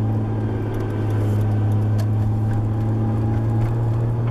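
Nissan 240SX's swapped RB20DET turbo straight-six and drivetrain running at a steady cruise, heard from inside the cabin. A gearbox whine is present with the clutch out, which the driver takes as a sign the transmission is going out (gears or synchros).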